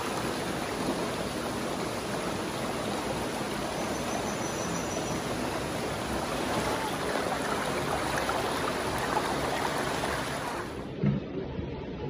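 Mountain stream rushing over rocks, a steady noise of flowing water. About eleven seconds in it drops to a quieter, duller sound.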